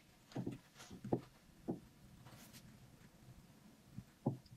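Kitchen knife cutting into a chocolate chiffon cake on a glass plate. It gives a few faint, soft knocks and scrapes in the first two seconds and two more near the end.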